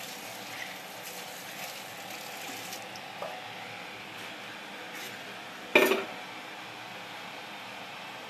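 Water running steadily for the first few seconds, then stopping, followed by a single loud clank of steel kitchenware about halfway through.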